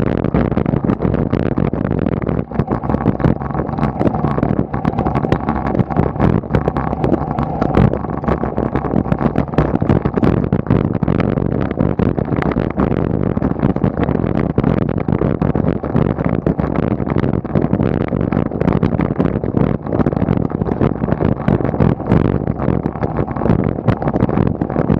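Wind rushing and buffeting over the microphone of a camera mounted on a moving bicycle, a steady fluttering rush.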